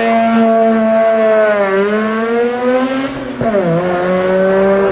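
A modified car's engine revving high and loud, its pitch held fairly steady with a slight dip and rise, then dropping sharply about three and a half seconds in and holding at the lower note.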